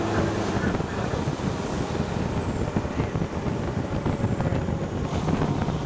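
Fire engine's diesel engine running with road noise, a steady low drone under a faint high whine that slides slowly down in pitch.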